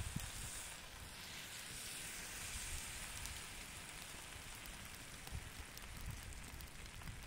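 Faint, steady, rain-like hiss and patter of cooked rice spilling from a basket onto flatbread lining a wok over a wood fire, with a few soft knocks as the rice is spread.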